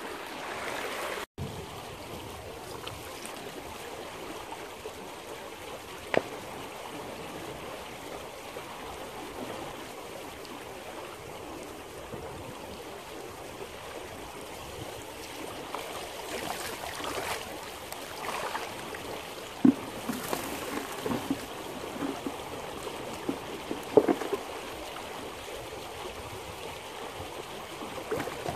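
Small stony creek running steadily, water rushing over rocks, with a few short knocks and splashes in the second half.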